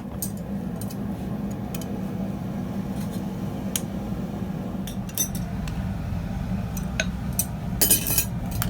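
Light metal-on-metal clinks of blacksmithing tools and steel stock, scattered through, with a quick run of clinks a little before the end, over a steady low hum.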